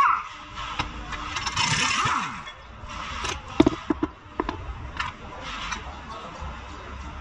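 Hand tools clinking and scraping against metal as a mechanic works around a car's front suspension, with a quick run of sharp metal clanks about three and a half seconds in.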